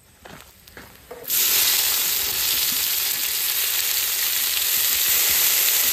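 Chopped onions tipped into hot oil in an iron kadai, where mustard seeds, green chillies and curry leaves are already frying. A loud, steady sizzle breaks out about a second in and keeps going.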